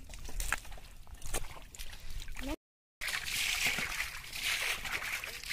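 Scattered small wet splashes and clicks from catfish flapping in shallow mud water. After a brief break in the sound, muddy water is bailed out with a metal bowl, splashing and sloshing continuously.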